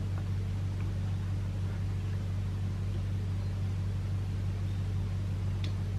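Steady low hum, with a few faint clicks and taps from a pistol grip and its spring being pressed onto an AR-15 lower receiver; the sharpest click comes about five and a half seconds in.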